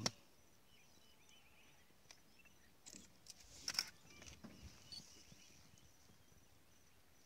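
Quiet bush ambience with faint, repeated high chirps, and a couple of sharp clicks a little past halfway.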